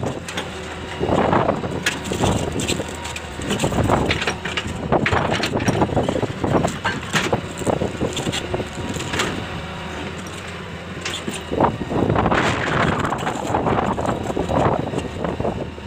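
Hitachi 200LC excavator working: the engine runs, rising and falling in level, with repeated sharp metallic clanks and knocks from the machine.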